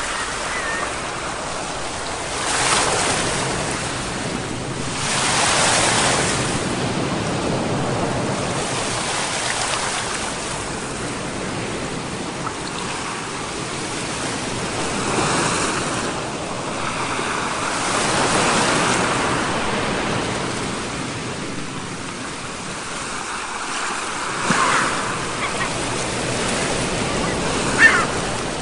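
Ocean surf: waves breaking and washing in, the rush swelling and fading in irregular surges every few seconds, with two brief high squeaks near the end.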